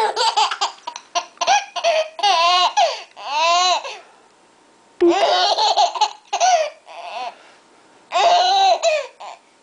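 Baby laughing: peals of high-pitched laughter in three spells, with short pauses about four and seven seconds in.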